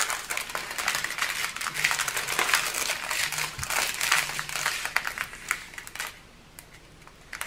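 Small plastic bags of diamond-painting drills crinkling and rustling as they are handled and counted, dying away about six seconds in.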